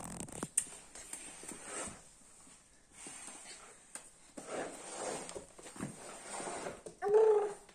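A nine-month-old baby's voice: soft babbling sounds, then a short, loud, high squeal near the end.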